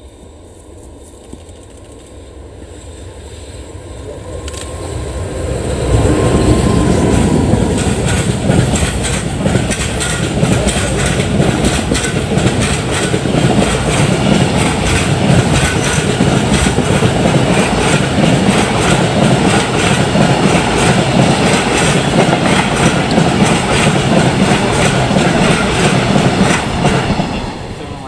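A container freight train hauled by an electric locomotive approaches with a faint whine, then passes close by from about six seconds in. Its wagons' wheels clatter steadily over the rail joints for about twenty seconds, then the sound fades near the end.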